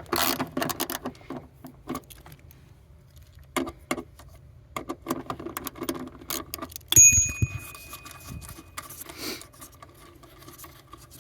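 Metal clicking and rattling as a wrench works loose the 10 mm bolts holding a car seatbelt. About seven seconds in comes a sharp metal clank that rings briefly with a high tone.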